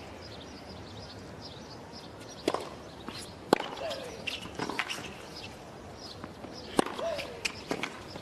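A tennis rally on a hard court: a ball struck back and forth with racquets, several sharp hits a second or two apart. A short grunt falling in pitch follows two of the shots, and faint bird chirps are heard throughout.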